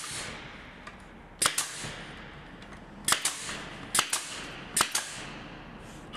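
Staple gun firing staples through FabricMate wall track into the wall: four sharp shots roughly a second apart, each a quick double snap.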